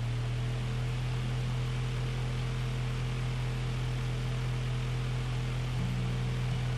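A steady low hum with an even hiss over it, holding unchanged throughout.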